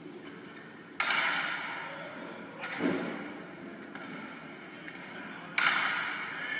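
Volleyball being struck hard in a gymnasium: two sharp hits about a second in and near the end, each echoing through the hall, with a duller, lower thump between them.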